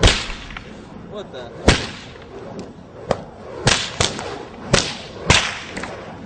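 A series of sharp cracks, about seven at uneven intervals; the first and the one just under two seconds in are the loudest.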